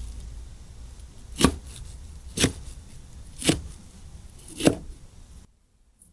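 A knife chopping food on a cutting board: four separate chops about a second apart. The background cuts off abruptly shortly before the end.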